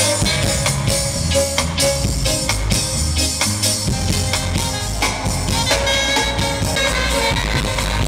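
Reggae band playing: drum kit keeping a steady beat under bass guitar and electric guitars.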